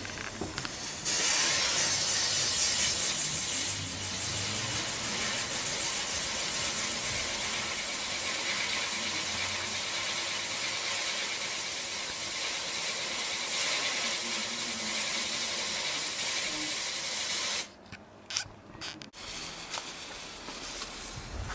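Catherine wheel firework burning with a steady, loud hiss of spraying sparks that grows louder about a second in and cuts off suddenly near the end, leaving a few short pops as it burns out.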